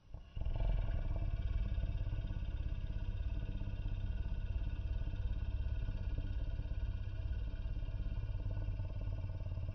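Throat-singing growl: a low, rough, pulsing hum held as one long steady note, starting abruptly just after the beginning.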